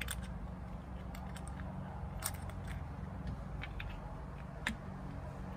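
Low steady background hum with a few faint, short clicks, about three over several seconds.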